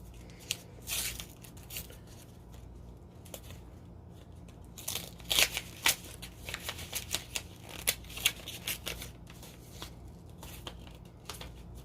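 Paper and packaging being handled and rustled as a mail package is unwrapped, with scattered short sharp clicks, busiest from about five seconds in.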